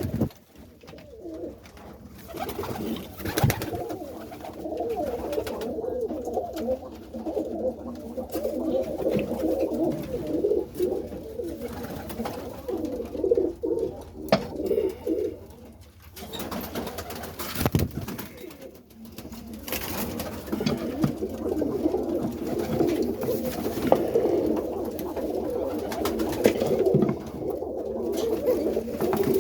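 Many domestic roller pigeons cooing together in an enclosed loft, a continuous overlapping warble, with a few sharp knocks.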